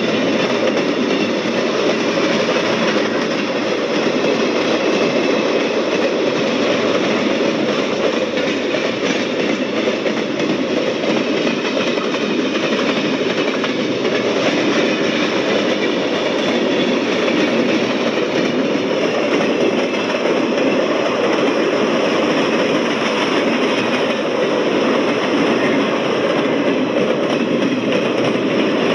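A train passing, its cars rolling by with a steady, continuous rumble and rattle of wheels on the rails.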